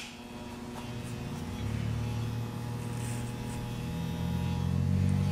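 Wahl Senior electric hair clipper running with a steady buzz that grows louder over a few seconds.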